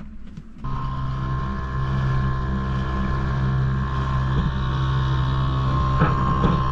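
Boat motor running steadily at an even pitch, coming in abruptly about half a second in.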